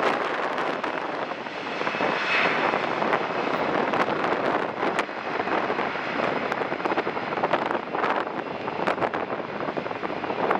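Jet airliner engines running steadily, with wind buffeting the microphone and scattered crackles.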